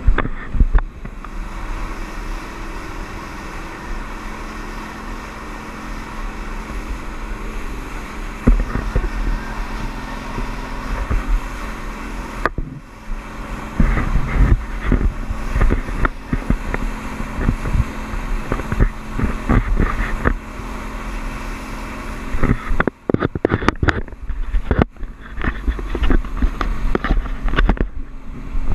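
Speed boat running fast over choppy water: a steady engine drone under wind buffeting the microphone. From about a third of the way in come many irregular thumps and slaps as the hull pounds through the waves.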